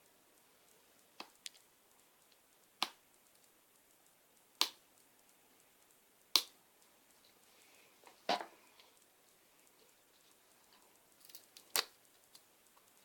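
Surprise egg being opened by hand: scattered sharp crackles and clicks, about seven over the stretch, one or two seconds apart, with quiet room tone between.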